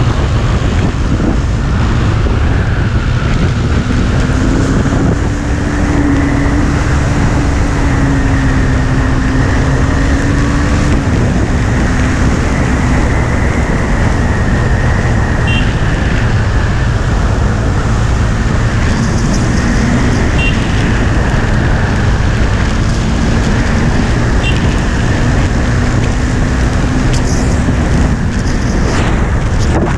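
Heavy wind buffeting on the microphone of a KTM Duke 390 ridden at speed, over the bike's single-cylinder engine running at a fairly steady note.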